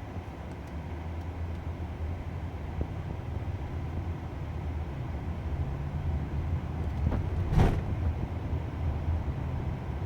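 Steady low rumble of road noise inside a moving car, with one short sharp sound about seven and a half seconds in.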